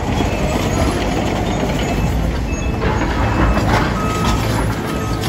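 Large tracked excavator's diesel engine running as the machine travels on its steel tracks. A reversing alarm begins beeping about three seconds in, roughly once a second.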